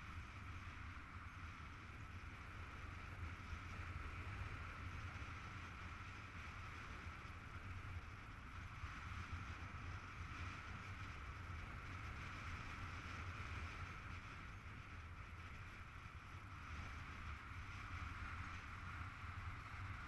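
Steady rush of wind over a camera mounted on a paraglider's risers in flight: a low rumble with a hiss above it, holding even throughout.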